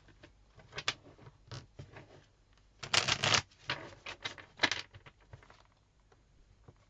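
Tarot cards being shuffled and handled: a run of short papery snaps and clicks, densest about three seconds in, then trailing off in scattered taps.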